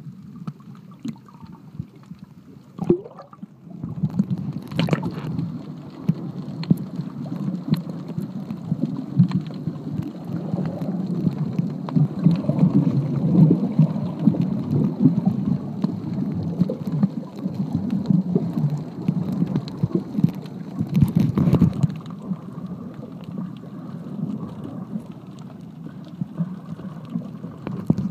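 Muffled water noise heard with the microphone under the surface: a low, churning rumble with scattered clicks, louder from about four seconds in.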